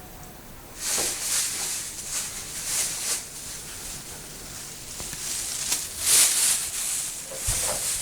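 Irregular bursts of rustling, hissy scraping from a lightweight decorative laminate panel being handled and positioned against a cabinet door.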